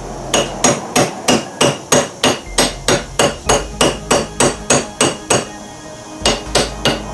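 Rapid steady hammer blows, about three a second, then a short pause and three more, driving a worn U-joint out of the front driveshaft yoke.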